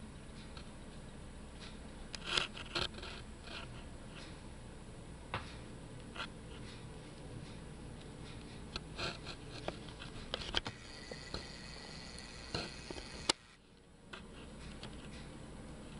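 Quiet indoor room tone with scattered small clicks and scrapes, and a brief drop to near silence about thirteen seconds in.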